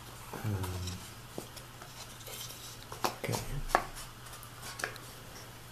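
Wooden panels and wedges of a paskha mold being handled and fitted together by hand: light wooden rubbing, with a few sharp clicks and knocks about three to five seconds in.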